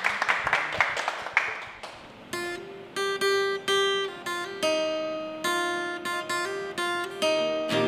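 Clapping dies away over the first two seconds, then an acoustic guitar starts playing, single plucked notes each ringing out and fading.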